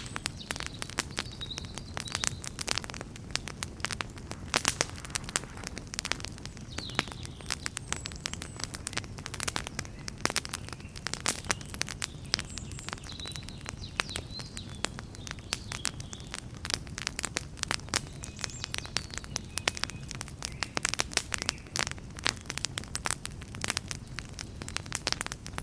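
Wood campfire crackling, with frequent irregular sharp snaps and pops over a steady low rushing noise.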